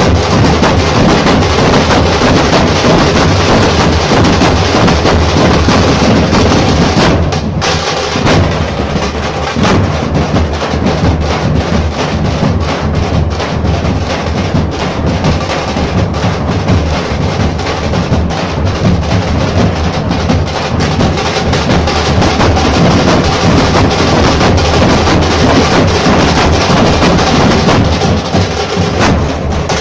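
A dhol-tasha troupe drumming: many large barrel-shaped dhol drums beaten together with sticks in a loud, dense, driving rhythm, easing briefly about seven seconds in.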